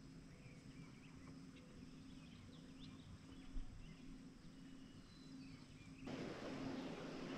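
Quiet ambience with a few faint, distant bird chirps over a low steady hum; the background hiss rises slightly about six seconds in.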